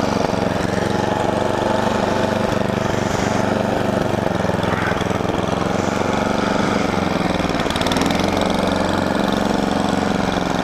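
Toro snowblower's engine running steadily under load while the machine is driven up a small snowy hill.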